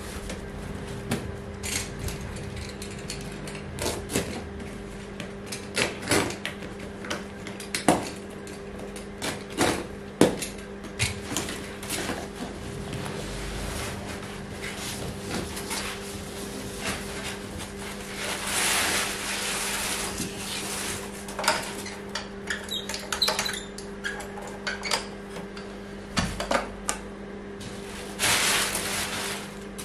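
A strapped cardboard box being unpacked by hand: plastic packing straps and cardboard flaps handled, giving scattered sharp knocks and clicks with two longer spells of rustling and scraping, over a steady low hum.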